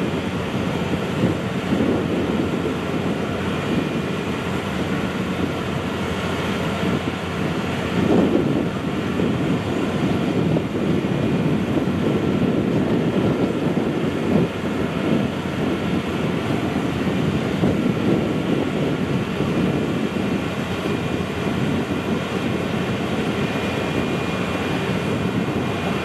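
Steady engine rumble with a faint steady whine above it, and wind buffeting the microphone.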